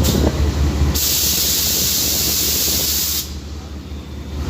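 A loud, even hiss that starts abruptly about a second in and cuts off about two seconds later, over the low rumble of a train in motion.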